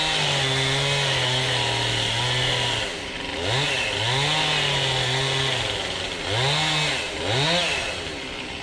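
Chainsaw held at high revs for about three seconds while cutting up a felled tree, then revved up and down in a few short blips and easing off near the end.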